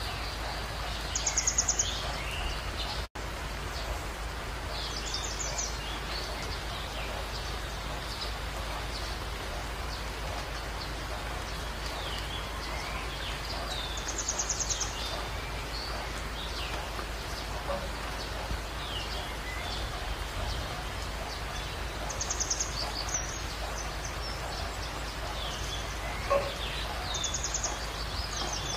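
Steady hiss of rain with wild birds calling over it: a rapid pulsed call high in pitch comes about five times, between scattered short chirps.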